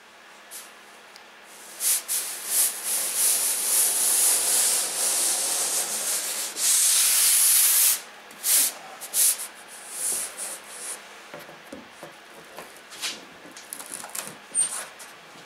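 Plywood ceiling being rubbed and pressed up from inside against a spar fixed with contact cement. Bursts of rubbing for about five seconds end in a long, loud stretch of steady rubbing, followed by scattered light scuffs and knocks.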